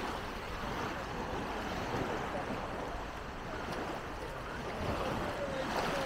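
Beach ambience: a steady wash of waves and surf, with faint, distant voices of people on the beach.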